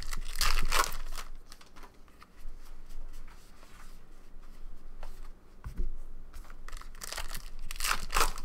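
A 2013 Topps Allen & Ginter baseball card pack's foil wrapper crinkles and rips as it is torn open, starting just under a second in, then softer rustling as the cards are handled. Near the end a second loud stretch of crinkling and tearing comes as the next pack is opened.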